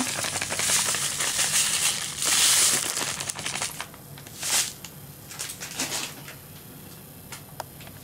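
Salt pouring from a packet into an aluminium pressure cooker, a dense hiss for about three and a half seconds. After it come a few brief rustles.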